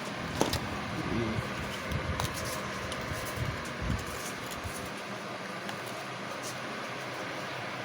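Steady low room hum with a few light clicks and taps.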